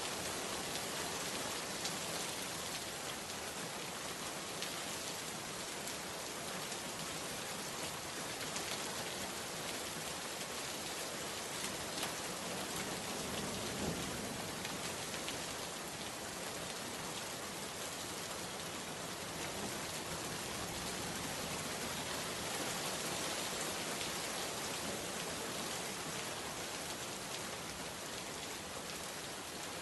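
Steady rain falling on a surface: a dense, even hiss of many small drops with faint scattered patters, holding at a constant level.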